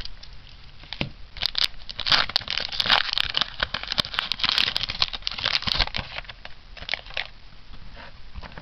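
Foil trading-card booster pack wrapper crinkling and crackling as it is opened and handled, busiest in the middle seconds and thinning out near the end.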